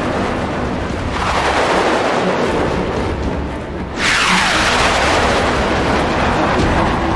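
Jet aircraft flying past twice: a rushing swell about a second in that fades out, then a sudden loud pass about four seconds in whose pitch sweeps downward as it recedes.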